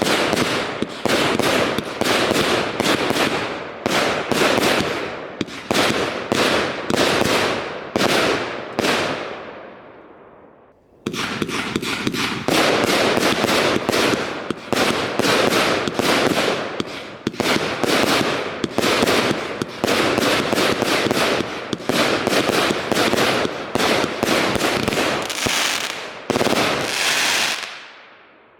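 Heron Fireworks 'Werewolf' firework going off: a rapid series of loud shots and bursts, about two a second, each trailing off. The shots die away about ten seconds in, start again a second later and stop just before the end.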